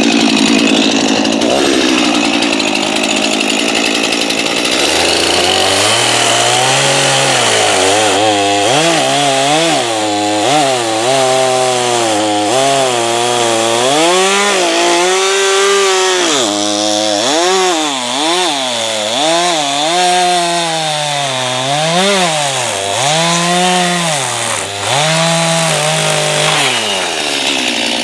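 Chainsaw cutting through a pine log at high revs. From about five seconds in, the engine's pitch repeatedly sags and climbs back as the chain bites into the wood and eases off.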